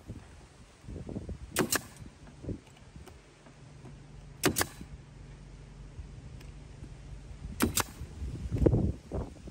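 Pneumatic nail gun firing nails through a hardwood drip guard strip into timber cladding: three sharp shots a few seconds apart, with dull knocks of the gun and wood being handled in between.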